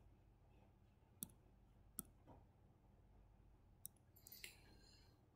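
Near silence: room tone with three short, faint clicks, about a second or two apart, and a soft scrape near the end.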